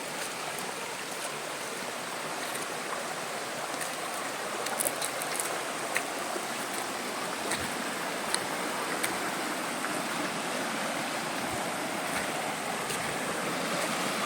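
River water rushing steadily, with a few faint clicks about halfway through.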